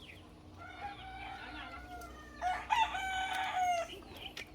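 Rooster crowing twice: a fainter crow about half a second in, then a louder one that drops in pitch as it ends.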